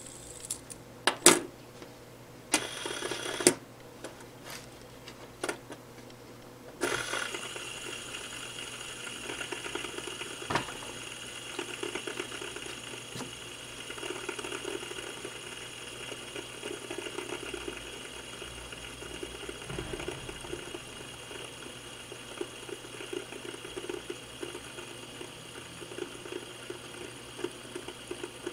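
Green plastic fidget spinner: a few sharp clicks as it is handled, then, about seven seconds in, a steady fluttering whir as it spins freely on its bearing on a wooden table, still going strong after twenty seconds.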